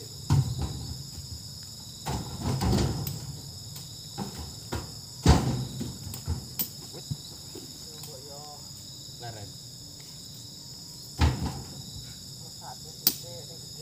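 Heavy oil palm fruit bunches thudding and knocking as they are thrown with hooked poles into a truck bed, several separate hits with the loudest about five seconds in. A steady high insect chorus of crickets or cicadas runs underneath.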